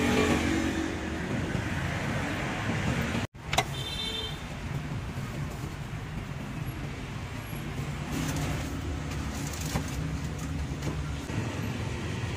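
Road traffic of cars and motorbikes passing on the street, a steady rumble, broken by a short dropout and a sharp click a little over three seconds in.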